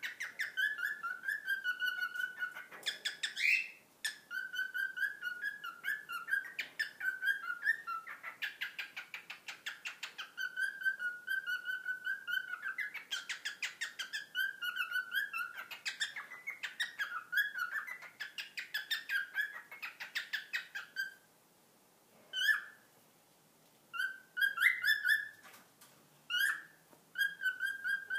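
Male cockatiel singing a fast, chattering whistled song made of many short repeated notes, delivered as a wing-spread display. It breaks off for a few seconds about three-quarters of the way through, then starts again.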